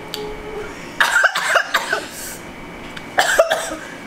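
A woman coughing in two short bouts, about a second in and again near the end, her throat burning from very spicy chocolate.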